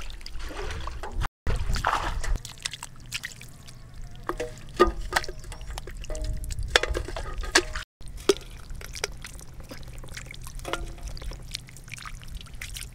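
Wet mud squelching and water trickling and sloshing as hands dig and grope through soft mud for fish, with irregular wet smacks and clicks. The sound drops out briefly twice.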